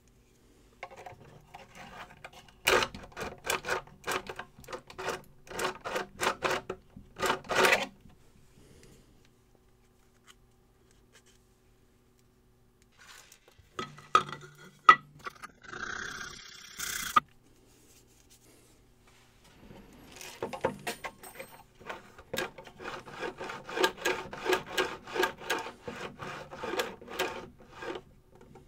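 Hand-sanding a small plastic part on a sheet of sandpaper laid flat on a tile: rapid back-and-forth scraping strokes in two long spells, with a few clicks and handling of parts in the pause between them.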